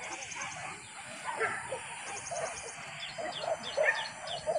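A pack of hunting dogs yelping and baying, many short overlapping cries, loudest near the end. Birds chirp over a steady insect buzz.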